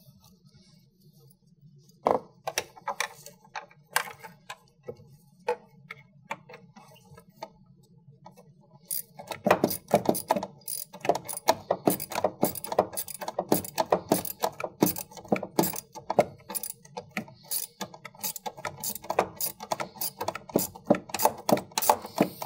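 Ratchet socket wrench clicking while the 12 mm bolt of a battery hold-down bracket is tightened: a few scattered clicks and knocks at first, then a fast, continuous run of ratchet clicks from about nine seconds in.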